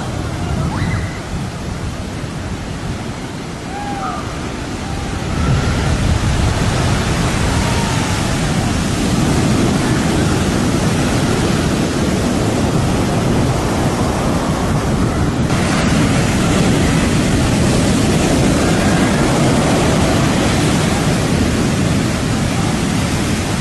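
Heavy surf: large ocean waves breaking and crashing, a loud continuous rush of water that swells about five seconds in.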